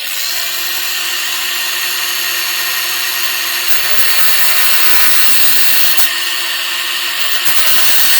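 Electric power tool starting up and running steadily under load, a motor hum under a dense high grinding hiss, used on a bolt at a workbench.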